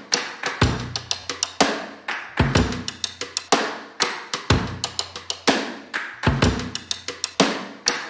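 Background music: a drum-kit beat, with a bass drum about once a second and quick sharp snare and percussion hits between.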